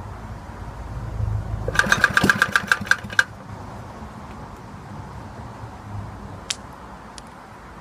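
Early-1960s Suffolk 75cc lawnmower engine pull-started: it fires in a quick run of loud pops, about ten a second, for about a second and a half, then dies. The engine is worn and runs badly.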